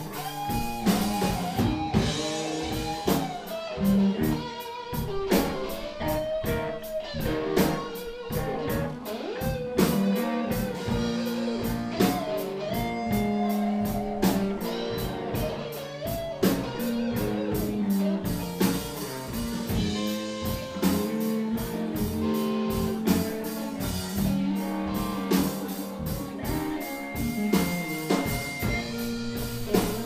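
Live blues band: electric guitar lead with bent, gliding notes over bass and a drum kit keeping a steady beat.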